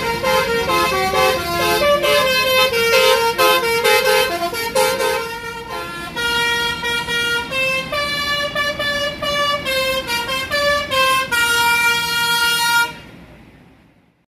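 A bus's Basuri telolet musical air horn playing a tune: a string of loud horn notes stepping up and down in pitch, quick at first and held longer in the second half. It cuts off about 13 seconds in.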